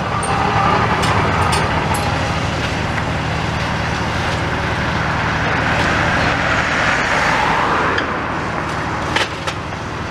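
Demolition excavator at work: its diesel engine running steadily under load, with a broad rushing noise that swells and eases off about eight seconds in as the grab works the brickwork. A few sharp knocks come near the end.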